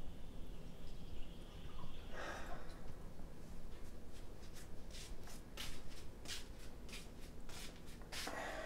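A brief soft rustle about two seconds in, then footsteps: a run of short light steps, about three a second, through the second half.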